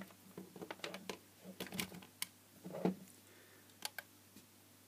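Plastic clicks and knocks from handling a mains plug and pushing it into a plug-in power meter, then pressing the meter's buttons. There is a string of sharp clicks with a louder knock about three seconds in.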